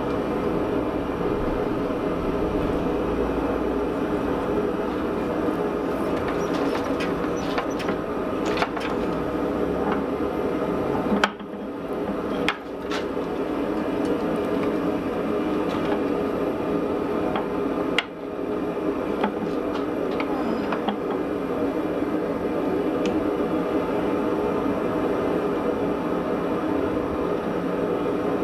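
Hydraulic forging press running with a steady motor-and-pump hum as its round dies squeeze a red-hot steel block, with scattered small crackles. The sound drops out sharply for a moment three times.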